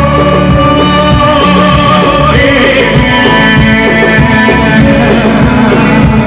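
A band playing live music through a loud PA, with a male singer on the microphone.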